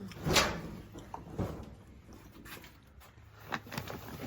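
Clothes and boxes being handled and moved about: a brief rustling swish near the start, then a few light knocks and clatters.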